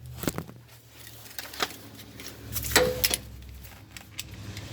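Hand tools being handled: a few sharp metallic clicks and knocks, the loudest about three seconds in with a short ring.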